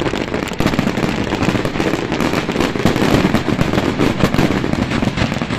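A fireworks display at full barrage: aerial shells bursting in rapid, overlapping bangs and crackles without a break.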